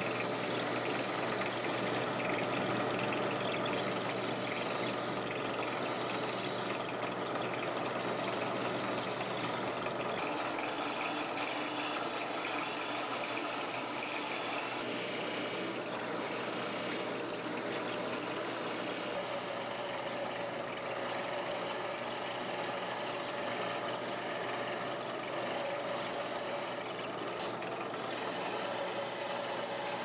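Wood lathe running with a turning tool cutting a spinning cherry finial blank: a steady motor hum under a hissing scrape from the cut, which breaks off briefly several times as the tool is lifted and set back on the wood.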